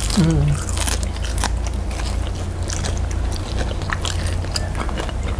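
Close-miked chewing and biting of fried breaded snacks, with many short crisp crunches and wet mouth clicks. A brief falling hum of a voice comes just after the start.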